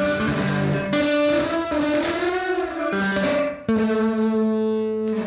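Electric guitar played through a Headrush pedalboard patch with a dirty, distorted tone and reverb. Sustained chords change a few times, and a note bends up and back down about two seconds in.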